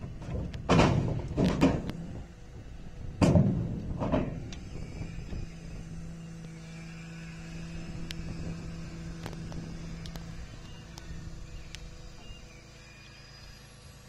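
A few sharp knocks or slams in the first four seconds, then a steady low hum that weakens about ten seconds in.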